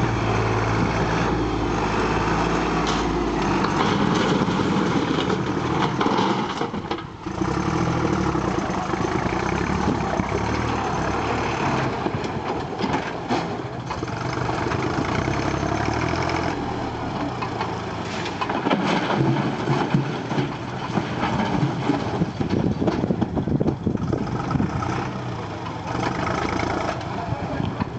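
Backhoe loader's diesel engine running steadily, briefly dropping about seven seconds in. Sharp knocks and clatter come through in the second half.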